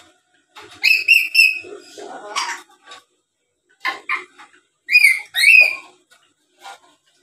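Black-capped lory chattering: a series of short, shrill calls, three quick notes about a second in, a harsher burst soon after, and two rising calls around five seconds in.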